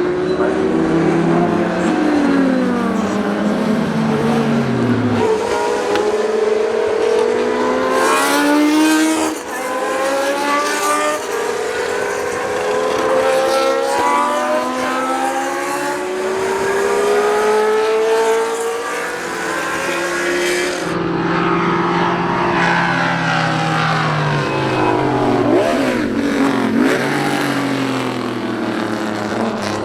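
Historic racing cars at full throttle, several passing one after another. Engine pitch climbs in steps as they accelerate through the gears and drops as each one goes by.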